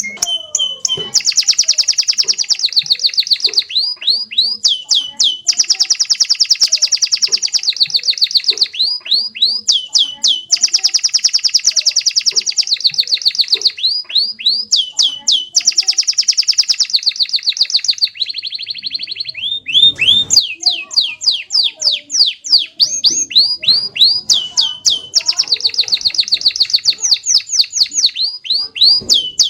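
Domestic canary singing without pause: long, fast trills and rolls, broken by runs of quick downward-sweeping notes.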